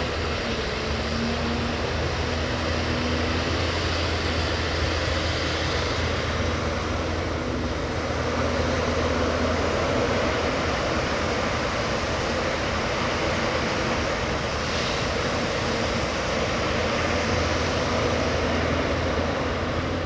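Backhoe loader's diesel engine running steadily under work, with a low hum beneath a broad mechanical noise.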